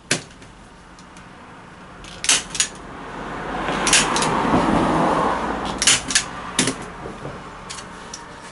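Hand staple gun driving staples through raw canvas into wooden stretcher bars, several sharp clacks. Between them, a rustling scrape of the canvas being pulled taut over the bars.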